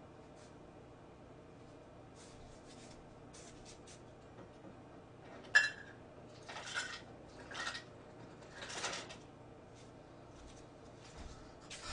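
Faint handling noises from objects being moved: a single sharp clink that rings briefly a little past halfway, followed by three short scraping rustles.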